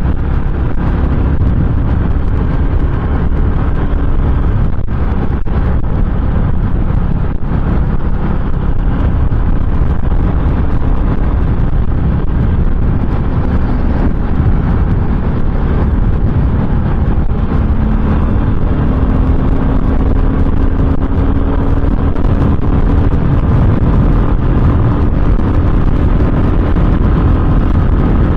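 GT650 motorcycle's twin-cylinder engine running at a steady cruise, under heavy wind rumble on the microphone. The engine note rises slightly in pitch in the last third.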